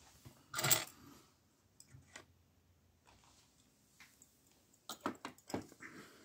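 Small metallic clinks and clicks of a warded padlock being handled and hung up: a brief rustle near the start, then scattered sharp clicks, with a cluster of louder clicks near the end.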